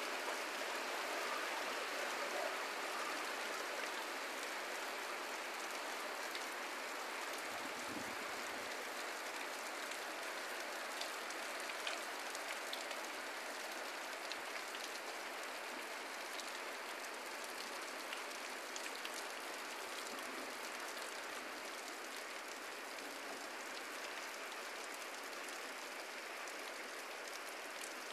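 Heavy rain falling steadily: an even hiss with scattered ticks of drops hitting, easing slightly over time.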